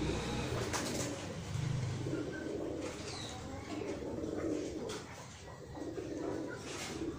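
Domestic pigeons, Saxon Monk fancy pigeons, cooing in low repeated phrases, with a couple of faint sharp clicks.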